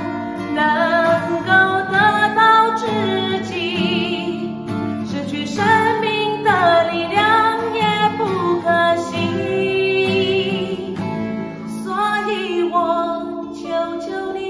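A woman singing a slow ballad to a strummed acoustic guitar, her held notes wavering with vibrato.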